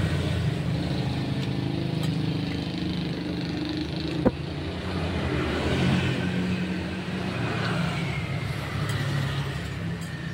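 Motor vehicle engine running close by as a steady low hum, with a slowly falling whine in the second half. A single sharp click about four seconds in.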